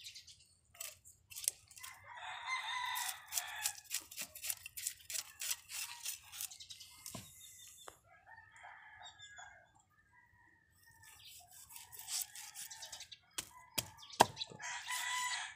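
Knife scraping scales off a fish on a wooden board, a run of sharp scratchy clicks throughout. A rooster crows, one call lasting about two seconds starting about two seconds in, with shorter fowl calls later, and a few sharp, loud knocks sound near the end.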